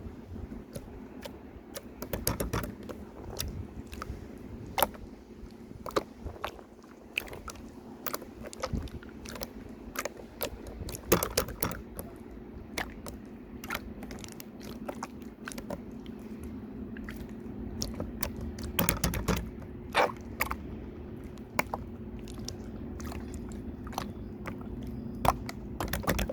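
Glossy slime being squeezed and pressed by hand, making an irregular stream of small sticky clicks and pops, with a few denser, louder clusters along the way.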